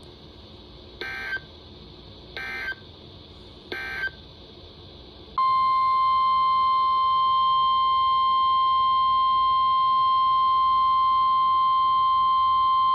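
Three short EAS/SAME digital data bursts, the end-of-message code closing a weather alert, then a loud steady National Weather Service alert tone of about 1050 Hz that sounds for about eight seconds.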